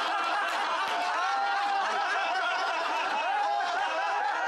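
A crowd of people laughing together, many voices overlapping; the laughter breaks out all at once and carries on steadily.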